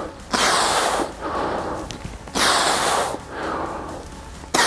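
A man breathing hard from the effort of dumbbell upright rows. He exhales sharply and forcefully about every two seconds, with softer breaths in between.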